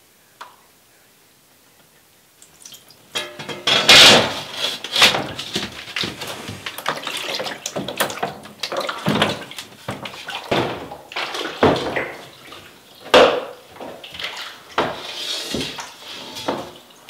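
Liquid sloshing and splashing in a shallow plastic processing tray as a large glass wet-plate negative is moved about in it, with sharp knocks among the splashes; it starts about three seconds in.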